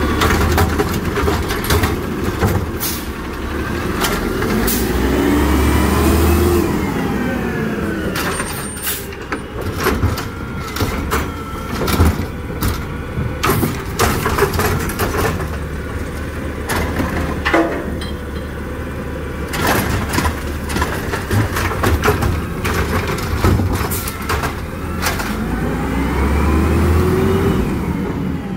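Peterbilt 320 automated side-loader garbage truck's natural-gas engine running as its lift arm works a recycling cart. The engine revs up and back down twice, as rising then falling whines, once about five seconds in and again near the end. Between them comes a long stretch of sharp clanks and knocks from the cart and arm.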